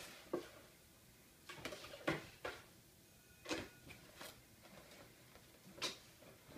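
Empty cardboard drink case knocking and scraping on a tile floor as a cat plays inside it and shoves it around: a handful of irregular short thumps and scuffs.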